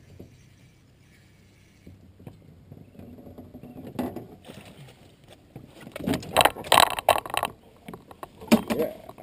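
Knocking and clattering as a walleye is netted and brought into an aluminium boat, with loud bursts of clatter about six seconds in and again near the end.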